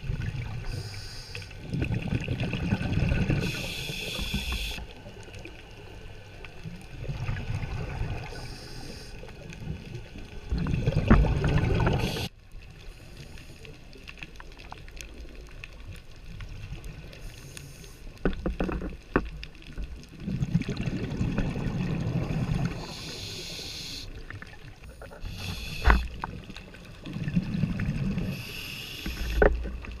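Scuba diver breathing through a regulator, heard underwater: bubbly rumbles of exhaled air alternate with shorter hisses of inhalation, repeating every few seconds. A few sharp clicks are heard in the second half.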